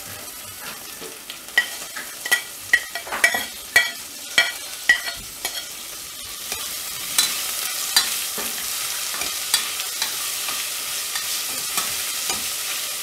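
Chopped onions going into hot oil in a steel pressure cooker: a run of ringing metal clinks as the steel spoon knocks against the pot, then steady sizzling from about six seconds in as the onions fry, with the ladle scraping now and then as they are stirred.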